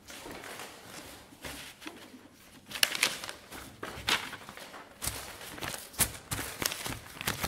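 Papers being handled on a wooden meeting table: rustling, with a series of short sharp knocks and taps as sheets are set down, about six of them from a few seconds in.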